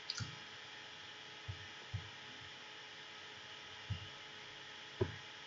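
Faint steady hum of room tone, with five soft, short low thumps spread through it; the loudest comes near the end.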